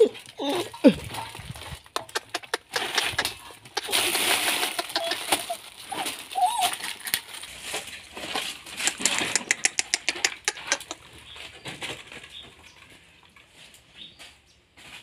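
Crumpled newspaper and plastic litter rustling and crackling as a puppy moves over rubble, busiest in the middle and tailing off near the end. A couple of short puppy whimpers right at the start.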